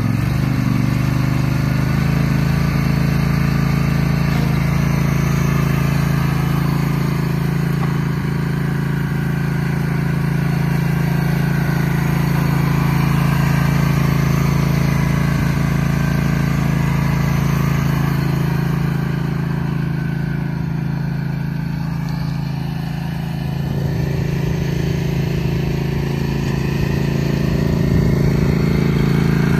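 Simplicity Broadmoor riding lawn mower's engine running steadily as the mower is driven; the sound dips slightly about three-quarters of the way through, then comes back up.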